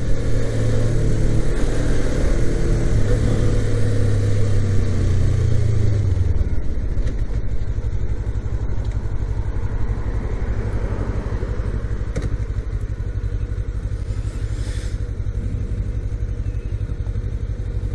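Suzuki GSX250R's 248 cc parallel-twin engine running as the motorcycle is ridden. A steady engine tone holds for about the first six seconds, then gives way to a lower, rougher rumble with road and wind noise.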